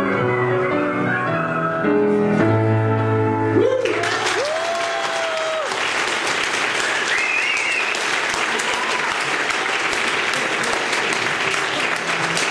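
Piano with a wind instrument playing the final notes of a tune, which end about four seconds in. An audience then applauds steadily, with a voice whooping just after the clapping starts.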